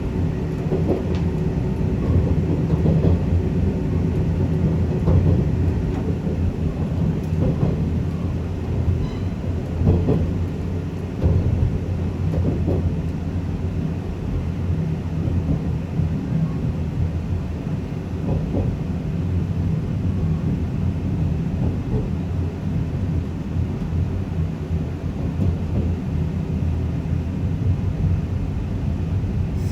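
JR East 485-series electric train running at speed: a steady low rumble of wheels on rails, with scattered sharp clicks from the wheels crossing rail joints.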